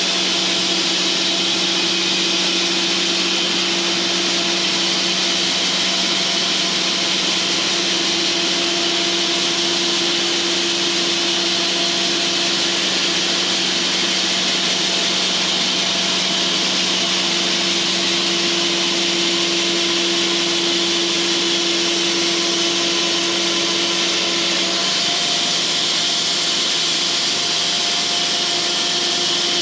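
Cooks band sawmill running with its band blade cutting lengthwise through a log: a steady, loud mechanical hum under a strong hiss from the blade in the wood. Near the end the machine's tone shifts.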